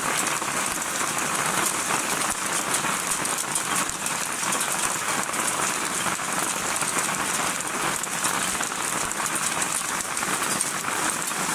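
Heavy rain pouring down in a thunderstorm: a dense, steady hiss full of countless pattering drops, with no letup.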